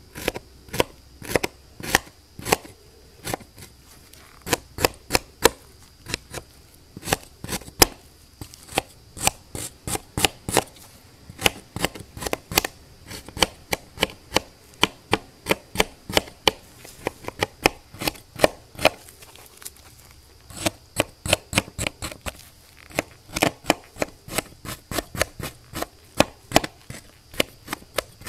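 Hobby-knife blade slicing through packed kinetic sand: a long run of crisp crunches, several a second, in quick clusters with short pauses.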